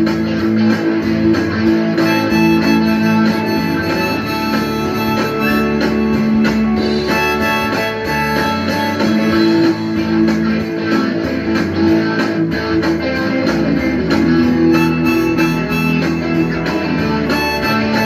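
Harmonica playing long held notes over a strummed guitar: a blues-style instrumental passage.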